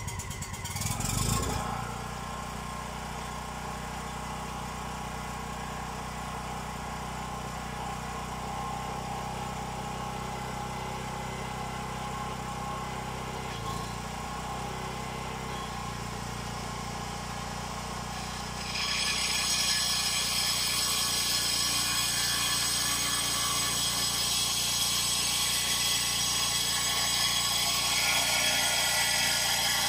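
Brush cutter engine running steadily at low speed, then revved up about two-thirds of the way through and running louder and higher-pitched for the rest.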